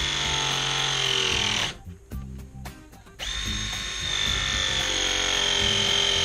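Ridgid RP 210 ProPress tool's motor running through two press cycles on copper fittings. Each cycle is a steady high whine that sinks slowly in pitch as the jaws close, then stops; the first ends a little under two seconds in, and the second starts about a second and a half later and runs on.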